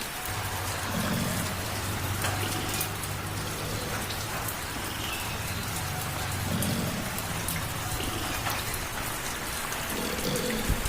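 Light rain pattering steadily, with a cat's low, steady purr underneath that stops near the end.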